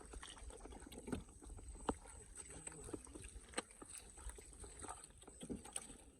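Shallow water sloshing and splashing at intervals, with a few sharp clicks, as a hand works through a flooded field.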